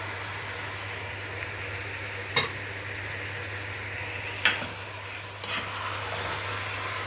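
Raw beef chunks sizzling in a stainless steel pot with fried onions and whole spices as a metal spoon stirs them, the spoon knocking against the pot about two and a half and four and a half seconds in.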